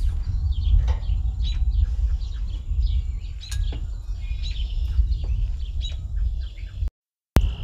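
Wind rumbling on the microphone with small birds chirping now and then, and a single sharp clunk about three and a half seconds in as the griddle's metal hood is closed.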